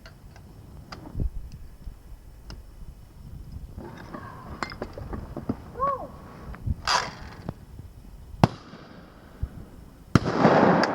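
Two shotgun shots on a pair of clay targets: a sharp crack about eight and a half seconds in, then a louder blast about a second and a half later that rings on briefly.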